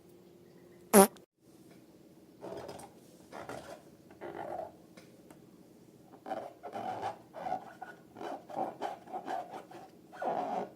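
Slime squelching and squishing in irregular short bursts with wet, fart-like pops, more often toward the end. A single short, loud, sharp sound comes about a second in.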